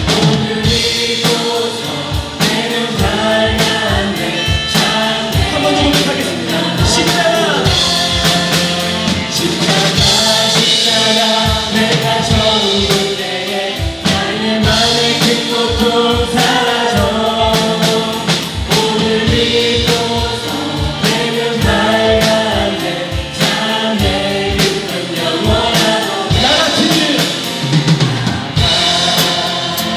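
Live church praise band leading a worship song: several voices singing together over a band with a steady drum-kit beat.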